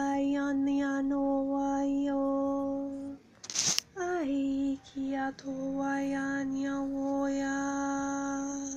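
A woman's voice singing wordless 'light language' chant on long held notes: one steady note with shifting vowel sounds for about three seconds, a short noisy break, then a second long note on the same pitch that opens with a brief downward slide.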